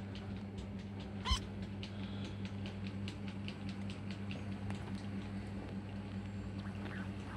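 Kittens play-fighting on bedding: many small scratches and taps of claws and paws on fabric, with one short, rising, high kitten squeak about a second in. A steady low hum runs underneath.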